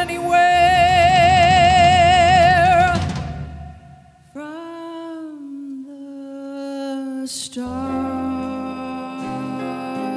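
Big band jazz ballad with a female singer holding a long note with vibrato over the band. The sound dies away almost to nothing about four seconds in, then a quiet solo melodic line enters, and the band's bass and horns come back in near the end.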